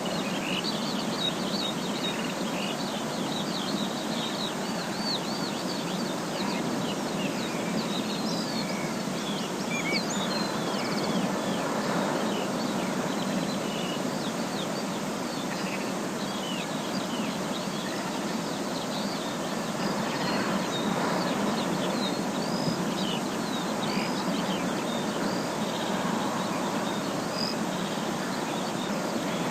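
Forest ambience: many birds chirping and calling at once, short quick notes overlapping throughout, over a steady rushing background noise.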